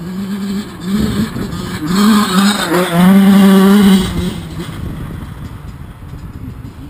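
Yamaha YZ85's two-stroke engine revving in short blips, then climbing to high revs and holding them loud for about a second. After that it drops off and fades away.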